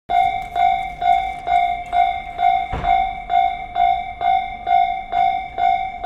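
Japanese level-crossing warning bell ringing its steady electronic clang about twice a second, the signal that a train is approaching. A brief dull bump about three seconds in.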